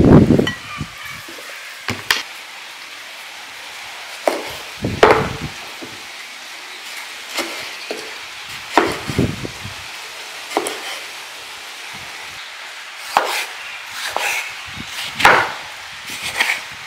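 Kitchen knife slicing tomatoes on a wooden cutting board: the blade knocks through onto the board in single strokes at irregular intervals of a second or two. Several strokes come closer together in the last few seconds.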